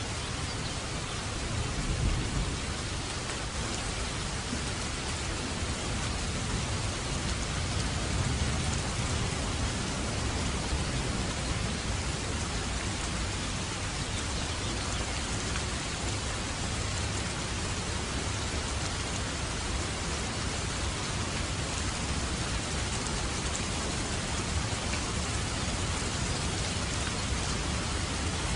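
Steady, even rainfall hissing, with a low rumble of distant thunder underneath, strongest about two seconds in.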